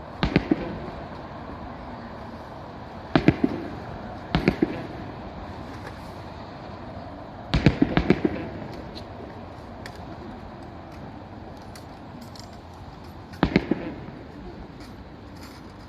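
Aerial firework shells bursting in about five volleys a few seconds apart. Each volley is two or three sharp bangs with a rumbling echo, over steady background noise.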